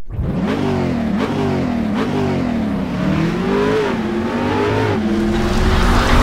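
Car engine accelerating hard through the gears: the engine note climbs and falls back at each shift, several times over, then holds at a steadier pitch near the end.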